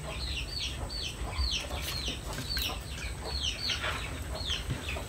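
Chicks peeping: a steady run of short, high chirps, each falling in pitch, about three a second.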